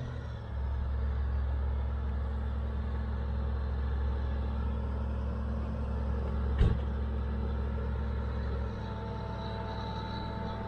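Caterpillar D7G bulldozer's diesel engine running steadily as the machine travels along a dirt track, a low rumble that eases off near the end, with one sharp knock about two-thirds of the way through.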